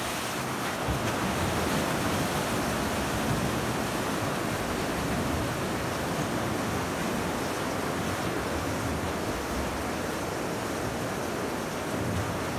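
Steady rush of splashing water from swimmers sprinting a 50 m pool length.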